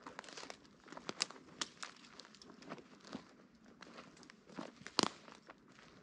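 Footsteps through dry leaf litter: irregular crunching and crackling of dead leaves and small twigs underfoot, with a sharper crack about five seconds in.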